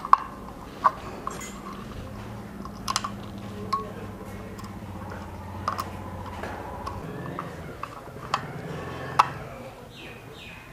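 Scattered sharp clicks and clinks of a screwdriver and a plastic switch-socket plate being fitted and screwed onto its wall box.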